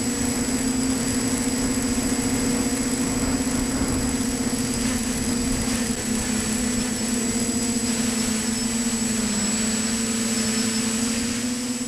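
TBS Discovery quadcopter's motors and propellers buzzing steadily, picked up by its on-board camera, over a rush of wind noise. The pitch holds nearly level, wavering a little.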